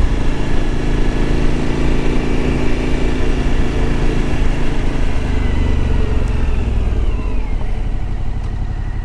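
Suzuki V-Strom motorcycle engine running at a steady speed, then falling in pitch over the last few seconds as the bike slows down.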